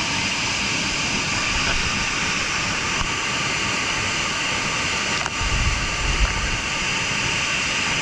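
Waterfall falling into its rocky plunge pool: a loud, steady rush of water, with a brief low rumble about two-thirds of the way in.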